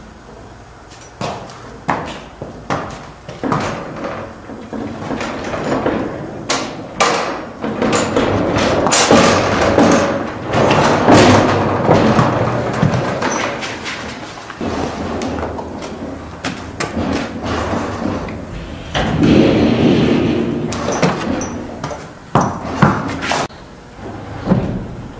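A horse working its stall door open: repeated rattles, knocks and bangs of the door against its frame.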